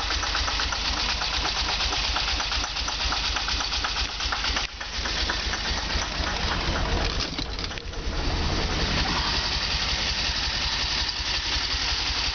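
DeLorean DMC-12's PRV V6 engine idling roughly, running unevenly. It dips briefly twice around the middle.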